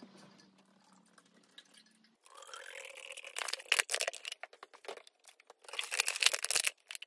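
White vinegar poured from a thin plastic bottle into a steel motorcycle fuel tank's filler. A pouring sound rises in pitch as the liquid flows, and then the bottle crackles noisily in two spells, about three and six seconds in.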